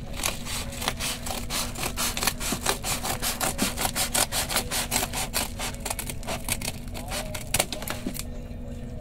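A parcel being sawn open by hand without scissors: quick back-and-forth scraping strokes, about five a second, that stop about a second before the end.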